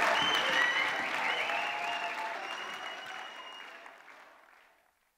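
Audience applause after the song has ended, with a few high whistle-like tones in it. It fades away steadily from about a second and a half in until it is gone near the end.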